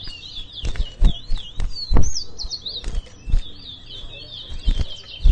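Caged twa-twa (chestnut-bellied seed finch) singing a fast, continuous twittering warble, the song being counted in a bird whistling contest. Several dull thumps sound through it, the loudest about two seconds in.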